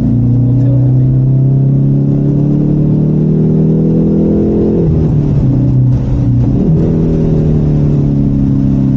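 Car engine heard from inside the cabin, pulling hard with its pitch climbing for about five seconds, then dropping sharply at an upshift, dipping once more a couple of seconds later, and easing off gradually as the car is driven on a race track.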